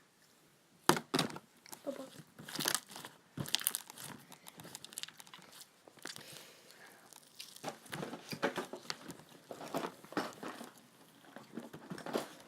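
Hands squeezing and stretching slime, making irregular crackles and sticky clicks.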